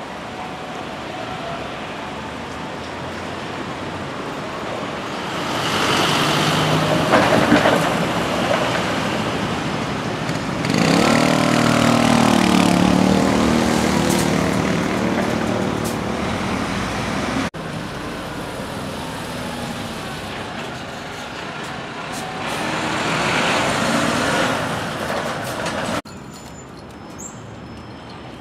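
Street traffic: vehicles passing one after another in three swells. The longest, from about 11 s in, has a low engine hum under it. The sound cuts off abruptly twice.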